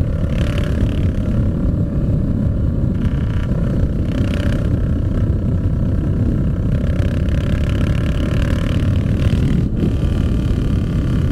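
Straight-piped vehicle engine running loud and steady through a bare exhaust pipe with no muffler, while on the move.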